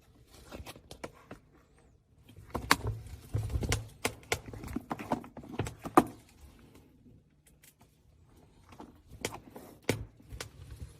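Small plastic fidget toys handled by hand: irregular clicks, pops and taps in two clusters, the sharpest about halfway through.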